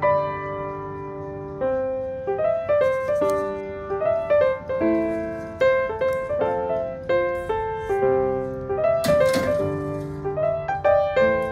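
Background solo piano music: a gentle melody of struck notes, each fading out before the next.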